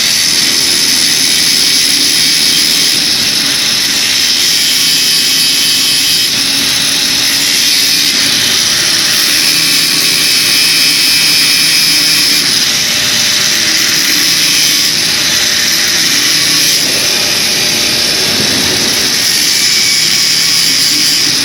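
Loud, steady machine noise with a strong hiss and no breaks.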